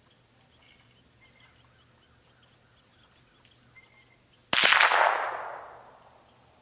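A single shot from a Mossberg 702 Plinkster semi-automatic .22 LR rifle, about four and a half seconds in, with a sharp crack and echo that fades over about a second and a half. Faint bird chirps come before it.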